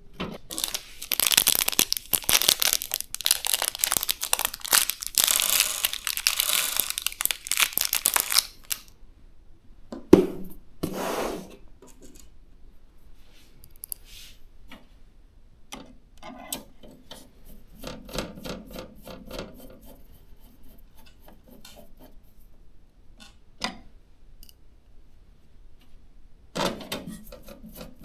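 Close handling noises while building a PC. About seven seconds of plastic rustling and tearing, then a sharp knock about ten seconds in, followed by scattered light clicks and taps as parts are handled.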